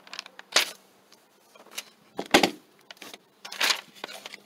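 Paper handling on a clipboard: a sheet of paper flipped and rustled in several short, irregular rustles, the loudest about two and a half seconds in with a low bump.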